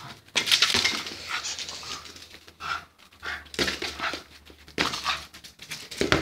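Small dog panting in quick bursts as it plays, with scuffling and knocking from the dog and its ball on a concrete floor.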